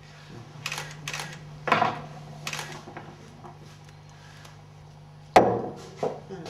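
A few short clicks and rustles of handling, then one sharp knock about five seconds in and two lighter ones after it, over a steady low hum.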